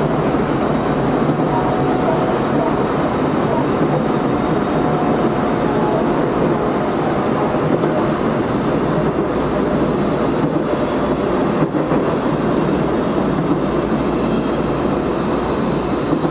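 Tokyo Metro 03 series armature-chopper electric train running steadily between stations: a continuous, even rumble of wheels on rail and running gear.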